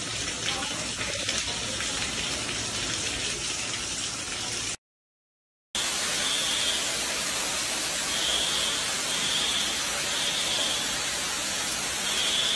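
Water pouring through a ceiling from pipes burst in a freeze. First it rains from ceiling light fixtures and splashes onto a hallway floor. After a second of silence a little under five seconds in, a heavier, louder cascade gushes from the ceiling down a stairwell, with a high tone sounding on and off over it.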